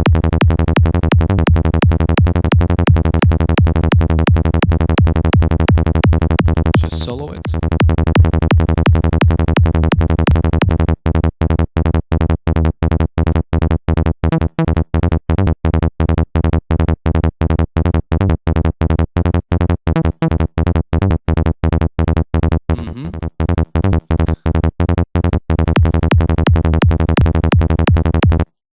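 Sylenth1 synth bass patch for high-tech psytrance looping at 170 BPM: fast, evenly repeated short notes with a deep, buzzing low end, run through compression. There is a brief filter-like sweep about a quarter of the way in, then a choppier stretch with clear gaps between the notes, and the loop cuts off suddenly just before the end.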